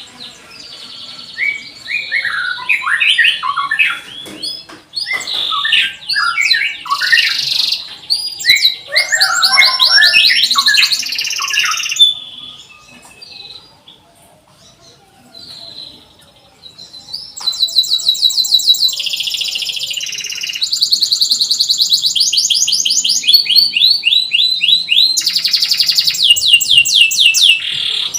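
Domestic canary singing long, fast warbling songs of rapid trills and chirps. It breaks off for a few seconds near the middle, then resumes with quick repeated trilled notes.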